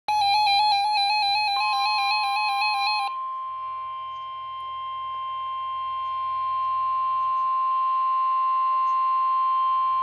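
NOAA Weather Radio 1050 Hz warning alarm tone: a single steady high tone that starts about a second and a half in and holds, played through a weather alert radio's speaker. For the first three seconds a rapid two-pitch electronic warble from the receiver's own alert alarm overlaps it, then stops abruptly.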